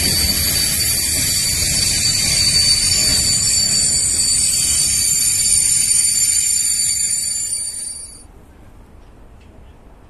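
Electric locomotive moving freight wagons during shunting: a low rumble under a steady high-pitched whine, cut off abruptly about eight seconds in, leaving only faint background.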